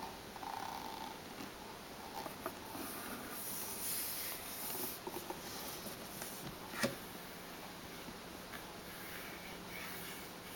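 Hands handling and shifting book-shaped stash boxes on a wooden tabletop: soft rustles and light taps, with one sharp knock about seven seconds in as a box is set down.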